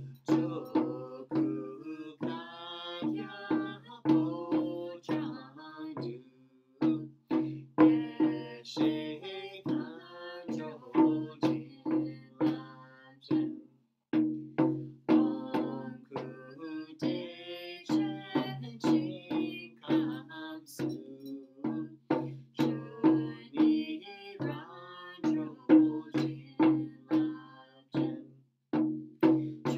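Chod damarus, large two-headed hand drums, rattled by twisting the wrist at about two strokes a second, under a slow chanted melody sung by two voices.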